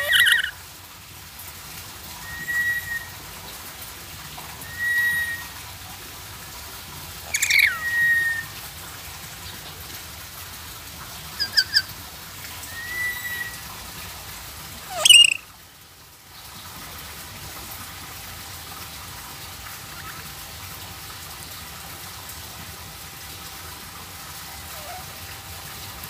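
Caged lory giving short whistles and chirps every couple of seconds, including a quick triple chirp, with a loud, sharp call about fifteen seconds in.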